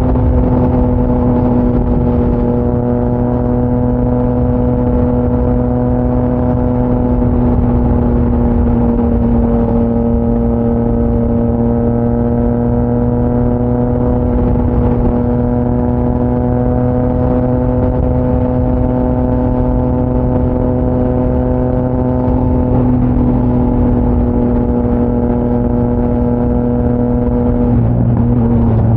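Triumph Trident 660 inline-three engine through a GPR aftermarket full exhaust, cruising at a steady engine speed from the rider's seat. Near the end the note drops.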